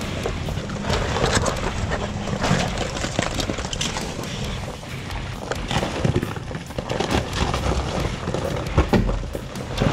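Off-road vehicles crawling over a rocky, icy trail, first a Toyota Tacoma pickup and then a Jeep Wrangler: engines running low beneath many crunches and knocks of tyres on rock and frozen ground.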